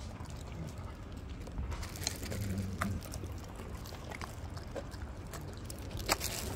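Golden retrievers eating pieces of cooked kabocha squash from a hand: a few scattered soft chewing and mouth clicks over a steady low rumble.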